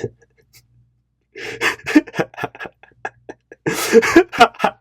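A man's voice in quick, choppy bursts starting after about a second of quiet, growing denser near the end.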